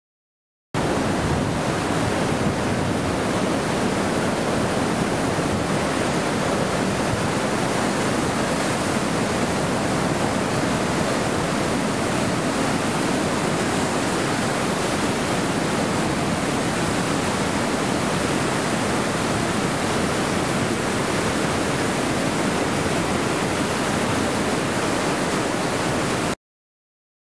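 Flood-swollen river pouring through a dam and churning in whitewater below it: a steady rushing, recorded on a cellphone. It starts about a second in and cuts off suddenly near the end.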